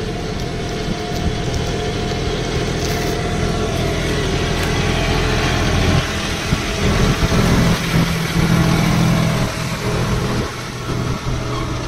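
John Deere 5210 tractor's diesel engine running steadily as it pulls a cultivator through dry soil. The engine grows louder as the tractor comes close and passes, loudest about six to ten seconds in, then eases off a little.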